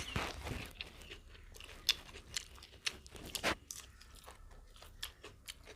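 Eating sounds of a person eating mutton biryani: scattered small clicks and crunches of chewing, loudest about two and three and a half seconds in.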